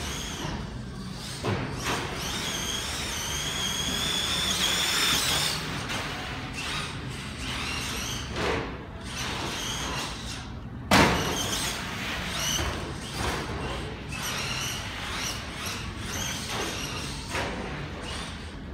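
Losi 22 SCT electric RC short course truck running laps. Its motor whine climbs in pitch for a few seconds early on, over tyre noise and scattered knocks, and there is one sharp, loud thump about eleven seconds in.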